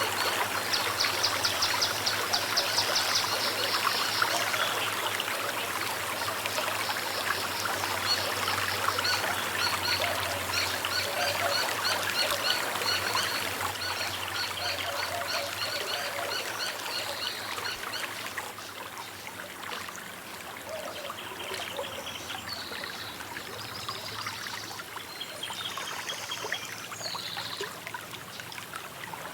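Water of a small river running steadily, with birds chirping: a fast run of short high chirps through the first half and scattered calls near the end.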